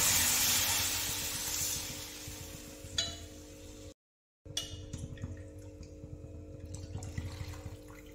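Water poured into a hot kadhai of fried potatoes and spices, a loud splashing hiss that fades away over about three seconds, followed by a short click and then a low, quiet bubbling of the pan.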